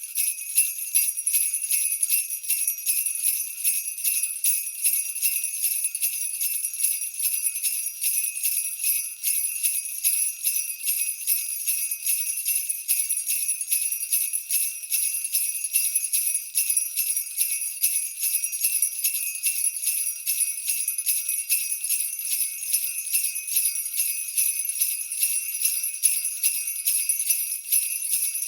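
Jingle bells shaken continuously: a high-pitched, unbroken jingling made of many quick strikes, with no pauses.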